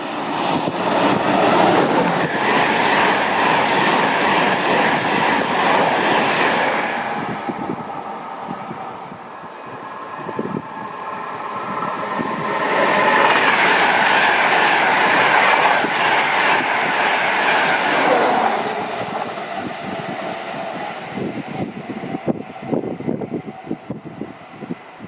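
Express train running non-stop through a station at speed: a loud rush of wheels on rail that swells, eases for a few seconds, and swells again, then fades with scattered clattering.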